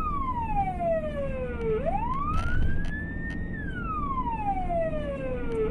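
Emergency vehicle siren in a slow wail: its pitch sweeps down over about two seconds, climbs back up, then falls again. A steady low rumble of engine or road noise runs underneath.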